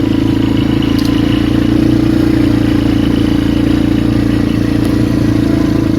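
Polaris Magnum 425 ATV's single-cylinder four-stroke engine running steadily under way, with no change in pitch.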